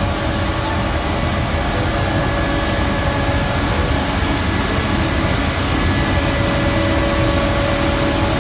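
Truck-mounted suction road sweeper running, its engine and suction fan making a loud, steady rushing noise with a few faint steady whining tones.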